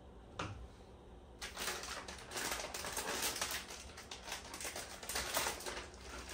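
Plastic bag of shredded cheese crinkling as it is picked up and handled, a dense run of quick crackles starting suddenly about a second and a half in, after a single click.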